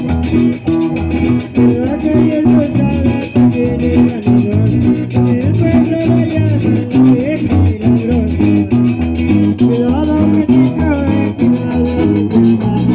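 Carranga music played by a string band: plucked and strummed guitars carry a melody over a stepping bass line, and a scraped guacharaca keeps a fast, even beat.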